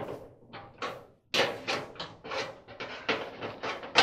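A quick, irregular run of sharp knocks and clicks, metal against the sheet-metal dryer cabinet, starting about a second in, as tools and fasteners are worked at the drum bearing mount.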